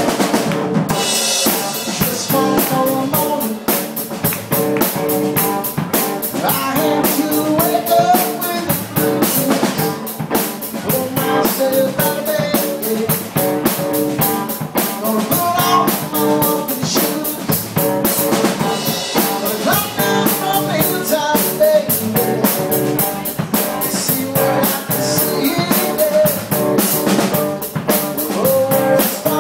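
A live rock band playing: an electric guitar over a drum kit, with a steady beat of snare, kick drum and cymbals.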